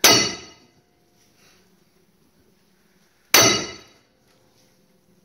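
Hammer blows on metal: two hard strikes about three seconds apart, each ringing out briefly and dying away.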